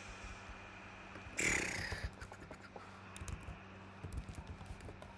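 Computer keyboard typing: light, irregular key clicks from about two seconds in, after a short burst of hiss.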